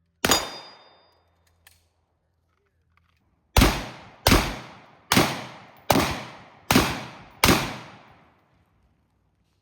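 Gunshots on an outdoor range: a single shot, a faint click, then six shots fired at an even pace, a little under a second apart, each with a short ringing decay.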